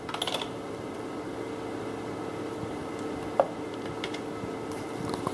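Steady low background machine hum carrying a couple of faint steady tones. There are a few light clicks near the start and one short squeak about three and a half seconds in, from a compression tester's gauge and hose being handled on the engine's valve cover.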